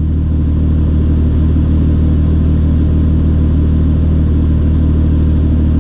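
Acura CL's V6 engine idling steadily with an even, unbroken hum. The car logs misfires on cylinders 1 and 4, but the engine does not shake at idle.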